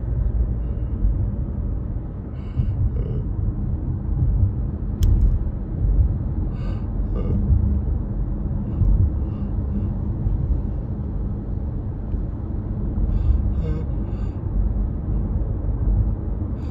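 Steady low rumble of a car cabin on the move: road and engine noise heard from inside. A few faint short sounds and one small click sit on top of it.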